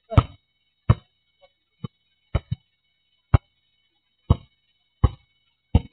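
A basketball bouncing hard on an asphalt court: about nine separate bounces, unevenly spaced, roughly one a second.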